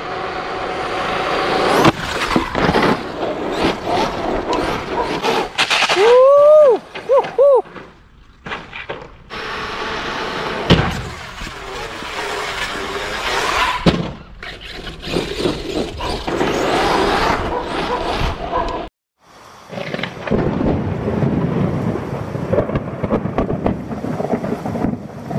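Brushless electric RC monster truck (Arrma Kraton 8S) running on pavement in quick cuts: motor whine and tyre noise, a few short rising-and-falling whines about seven seconds in, and several sharp knocks. It cuts off suddenly, and from about twenty seconds in a thunder rumble sound effect plays.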